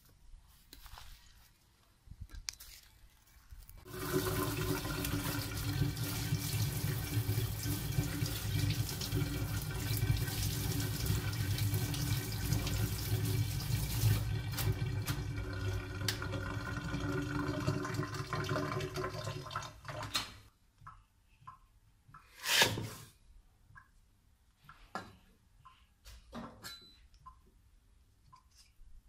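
Water from a kitchen spray-head tap running into a stainless steel sink while hands wash something under the stream, a steady rush lasting about sixteen seconds before it is turned off. A couple of seconds later comes one sharp knock, then a few light clicks.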